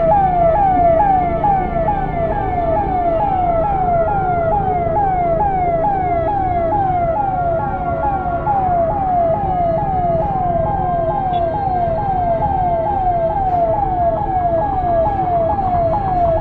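Ambulance siren sounding a fast repeating pattern, one falling sweep about two and a half times a second, over the low noise of road traffic.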